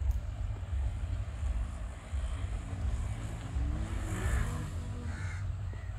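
A crow cawing a couple of times in the second half, over a steady low rumble.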